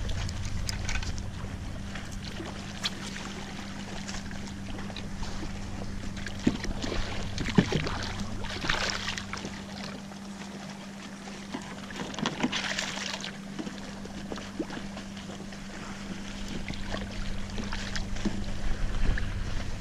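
Water lapping and splashing against a kayak's hull, with a few louder splashes partway through, over a steady low hum.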